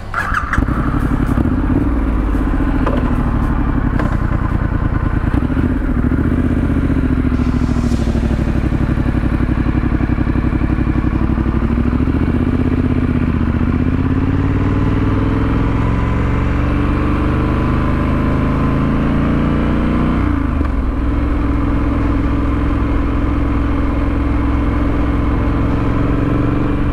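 Triumph Scrambler 900's 900cc parallel-twin engine through a Vance & Hines exhaust, heard from the moving bike; its note rises and falls with the throttle. It climbs steadily, drops sharply about twenty seconds in, then holds steady.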